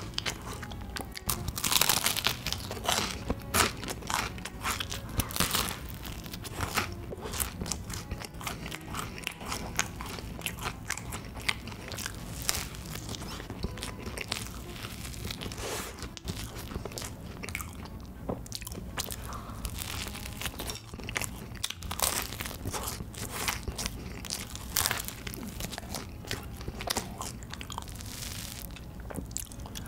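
Close-miked crunching and chewing as a crisp waffle filled with whipped cream and chocolate cookie crumbs is bitten into again and again. The loudest crunches come about two seconds in.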